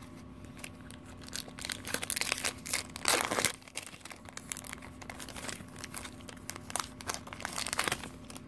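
Foil Pokémon booster pack wrapper being torn open by hand, crinkling loudest about two to three seconds in, then softer crinkling as the cards are slid out.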